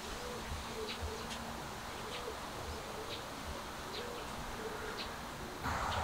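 Birds chirping in the background: short high chirps about once or twice a second, with short low cooing notes beneath. Near the end a louder, even rushing noise comes in.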